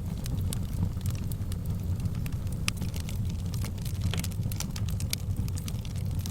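Fire in a fireplace crackling: scattered sharp pops and snaps over a steady low rumble, the pops coming thicker from about halfway through.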